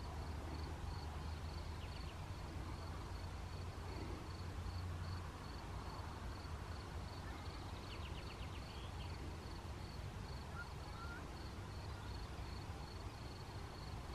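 Distant thunder, a low rumble that eases off about five seconds in, following a lightning flash. Under it a field insect, likely a cricket, chirps steadily about three times a second, and a bird gives a short trill a little past the middle.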